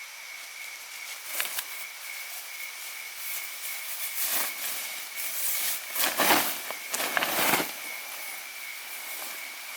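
Irregular rustling and crackling, loudest in two bursts past the middle, over a steady high-pitched insect drone in the forest.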